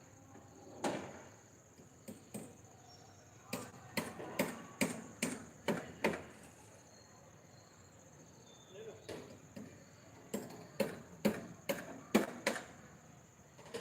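Hammer blows on centring formwork, struck irregularly in two runs of sharp knocks, about half a dozen each, with a pause between them.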